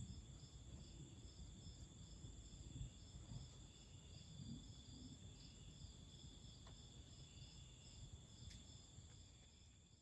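Faint chirping of insects such as crickets: a steady high trill with a pulsing chirp of about two or three a second over it.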